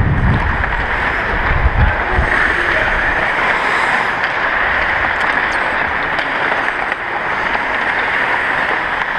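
Ice skate blades gliding and scraping on rink ice in a steady hiss, with wind buffeting the microphone in low rumbles near the start and about two seconds in as the skater moves.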